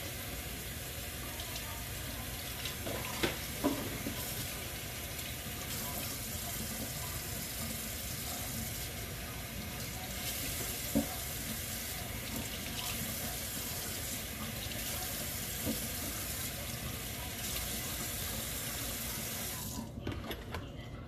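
Kitchen tap running into the sink while Brussels sprouts are rinsed under it, with a few light knocks. The water shuts off near the end.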